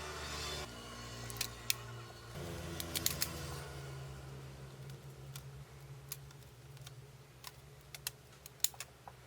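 Scattered small clicks and taps, like tools and phone parts being handled on a workbench, over a low steady hum.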